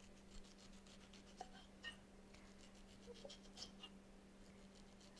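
Faint, scratchy strokes of a serrated knife cutting the peel and pith away from a blood orange on a wooden board, a few short scrapes with a small cluster late on. A faint steady low hum runs underneath.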